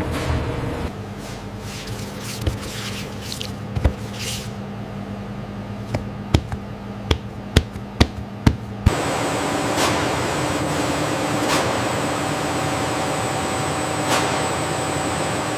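Factory machinery running with a steady hum and a low tone. Several sharp clicks and knocks come about six to nine seconds in. Then the sound switches suddenly to a different machine hum with a thin high whine.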